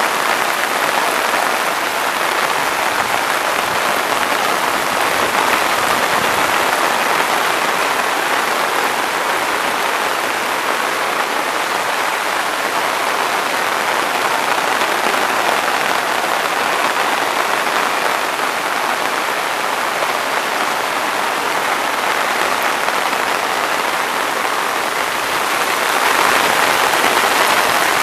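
Steady rushing noise of heavy rain and muddy floodwater running down a footpath, a little louder near the end.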